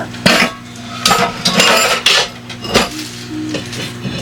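Dishes and cutlery clattering and clinking as they are handled, a string of sharp clinks and knocks.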